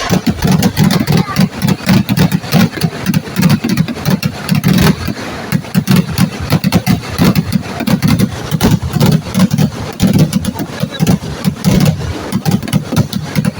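A dense, continuous barrage of firecracker bangs going off in rapid succession, several a second, with the loudness jumping up and down without a pause.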